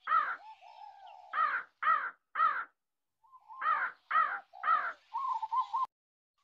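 A crow cawing: three runs of three calls each, followed near the end by a quick run of shorter wavering notes.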